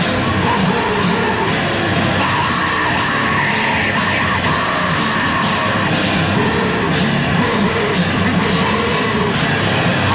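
Loud heavy metal from a 1980s demo tape recording: distorted band with drums and shouted vocals.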